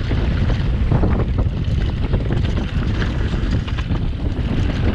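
Wind buffeting a GoPro action camera's microphone while riding a mountain bike downhill, with the steady rumble of the tyres and a scatter of short rattles and clicks as the bike rolls over rough trail.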